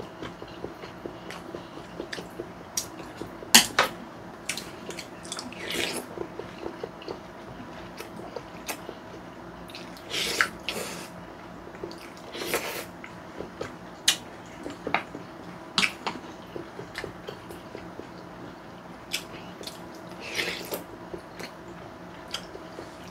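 Close-up eating sounds: spaghetti noodles slurped in a handful of short drawn-in pulls, with chewing and many sharp clicks of chopsticks and a fork against ceramic bowls.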